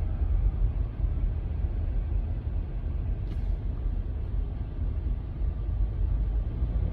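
Steady low rumble of a vehicle on the road, with one faint brief click about three seconds in.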